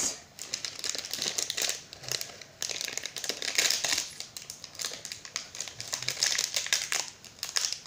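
Easter egg packaging being handled and opened, crinkling and crackling in irregular bursts of small clicks.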